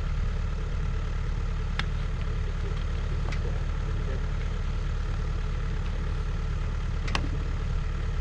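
An engine runs steadily at idle with a low, even hum. Three short sharp knocks or clicks sound over it, about two seconds in, near the middle and near the end.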